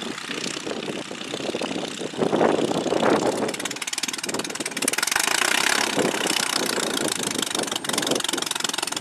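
Piston engine of a CASA 1.131 Bücker Jungmann biplane running at low power as it taxis, with the propeller's steady beat. It gets louder about two seconds in and again about five seconds in.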